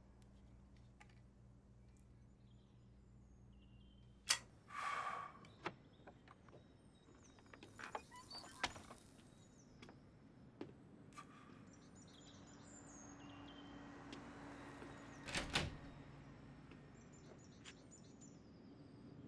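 Quiet scene ambience: a low steady hum for the first four seconds, then scattered sharp clicks, a short hiss, faint high chirps and a soft thump about fifteen seconds in.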